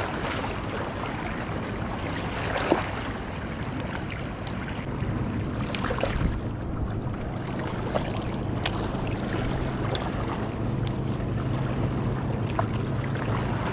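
A boat engine out on the lake running at a steady pitch, coming in about five seconds in, over wind and water noise, with a few faint sharp ticks.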